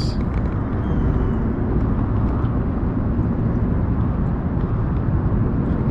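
Steady low rumble of wind buffeting an action camera's microphone over open water.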